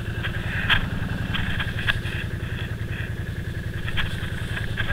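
Can-Am Outlander 500 ATV engine idling steadily, with a few light knocks.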